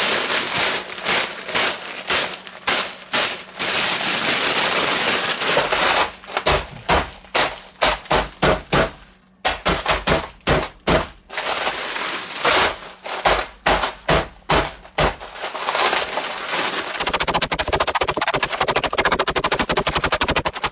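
Plastic bag of crushed ice crinkling and rattling as it is handled, then a meat mallet pounding the bag to break up clumps of ice: separate blows a few times a second, turning to a fast rattle of rapid blows over the last few seconds.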